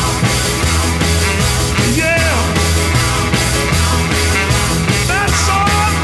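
Rock music with a steady, fast drum beat.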